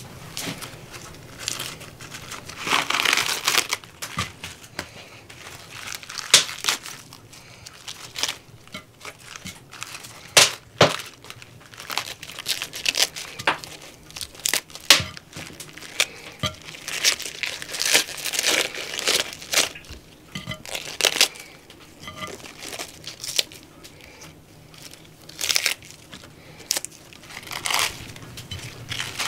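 Crisp lettuce leaves torn apart by hand: a run of irregular crackling tears and crunches, with a sharp snap now and then.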